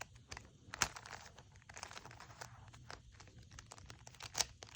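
Rubik's cube being turned quickly through a move sequence: a run of irregular plastic clicks and scraping as the layers rotate, with louder clicks about a second in and near the end.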